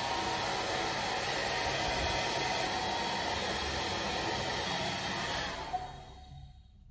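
Handheld hair dryer blowing steadily while drying hair, then winding down and falling quiet about five and a half seconds in as it is switched off.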